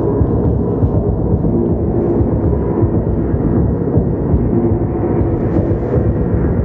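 Dark ambient drone: a loud, steady low rumble with a few faint held tones above it.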